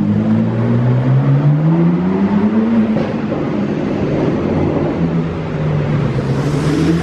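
BMW M car's twin-turbo straight-six accelerating through its exhaust inside a parking garage. The engine note climbs over about three seconds, drops back, holds steady, then climbs again near the end.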